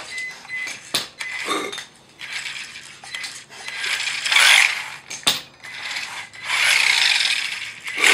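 Hand ratchet wrench clicking in runs on a Subaru transmission, with sharp metal clinks of tools and parts. The two longest ratcheting runs come in the second half.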